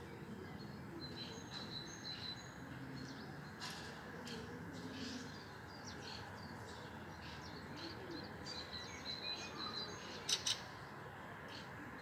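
Songbirds chirping and singing: short high chirps and brief trills come and go, with two sharp, loud notes in quick succession about ten seconds in.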